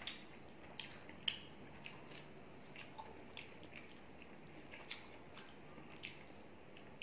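Close-miked eating sounds: irregular wet smacks and clicks from chewing and from a hand squishing and mixing rice with chicken curry. The sharpest click comes about a second in.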